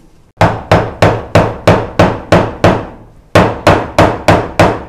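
Steel cleaver chopping produce, greens and a lime, against a wooden cutting board: quick, evenly spaced chops about three a second. There is a run of eight, a short pause a little past halfway, then six more.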